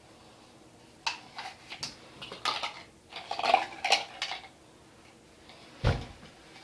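Plastic drinking straws clattering as they are dropped into a plastic tub by the sink: a quick, uneven run of light clicks and rattles, then one dull thump near the end.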